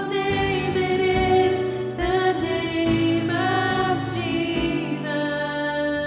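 A worship song: voices singing long held notes over a band with a steady drum beat.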